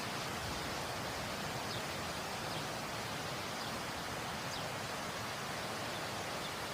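Waterfall rushing: a steady, even roar of falling water, with a few faint, short high chirps over it.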